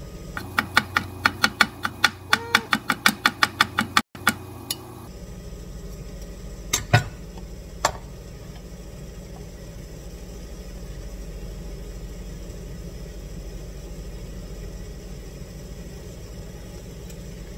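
A chef's knife chopping fresh turmeric root on a plastic cutting board, about four quick chops a second for around four seconds. A couple of separate knocks follow a few seconds later, then only a low steady background hum.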